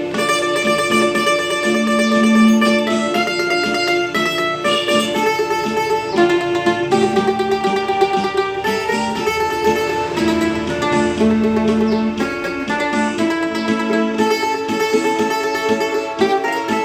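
Mandolin played solo, a continuous melody in D minor with many notes held for a second or more.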